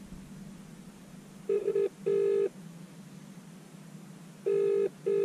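British-style telephone ringback tone: the double ring of an outgoing call, two pairs of short rings about three seconds apart, the first about a second and a half in and the second near the end, while the call waits to be answered.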